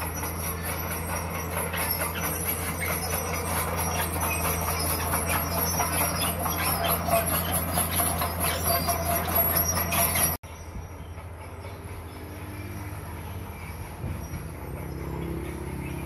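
Komatsu crawler bulldozer's diesel engine running steadily, with its steel tracks clanking and squealing and stones crunching as the blade pushes a load of rock and soil. About ten seconds in the sound cuts abruptly to a quieter, more distant engine running.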